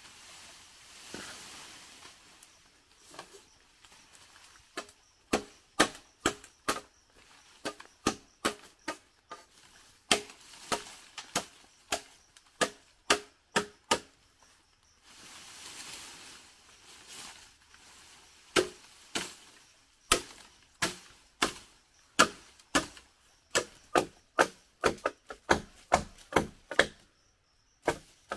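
Machete chopping through green bamboo poles: sharp, even strikes about two a second, in two runs of several seconds each. Softer rustling fills the gap between the runs.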